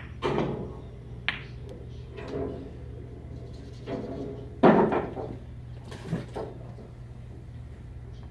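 Pool balls being struck and knocking on the table: a sharp clack just after the start as the cue ball is hit, then several more clacks and thuds of balls hitting each other and the cushions, the loudest about four and a half seconds in.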